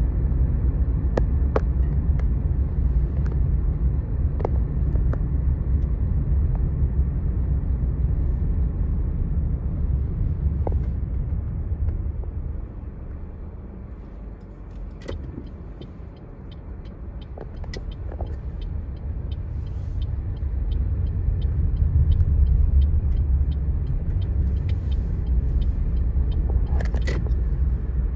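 Low motor-vehicle rumble, like road traffic close by, that fades away about halfway through and builds up again. Faint, evenly spaced ticks run through the second half.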